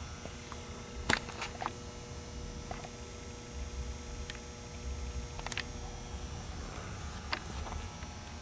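Indoor room tone: a steady low hum with a few faint steady tones, broken by several short, sharp clicks, the loudest about a second in and another around five and a half seconds.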